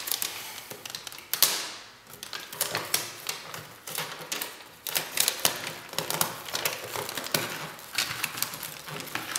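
Aluminum foil tape being peeled from its backing and pressed by hand around a flexible aluminum foil duct: irregular crinkling and crackling of the foil, with one louder rip about a second and a half in.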